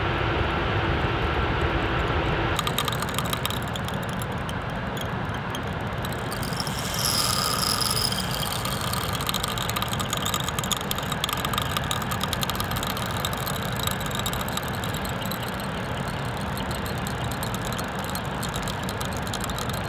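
Shimano Baitrunner spinning reel ticking fast and steadily as a hooked catfish strips line off the spool on a long run. A steady tone sounds for the first couple of seconds.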